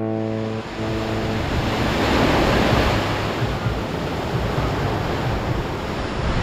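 Surf washing, an even rushing noise that swells about two seconds in and then holds steady. Music fades out in the first second and a half.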